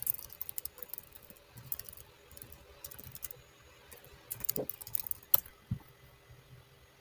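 Typing on a computer keyboard: quick irregular runs of key clicks, ending with one louder click about five seconds in.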